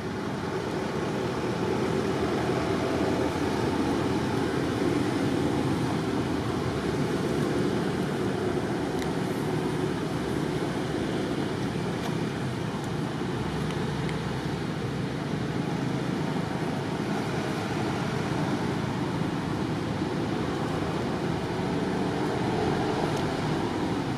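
Steady rushing noise with no distinct calls or knocks.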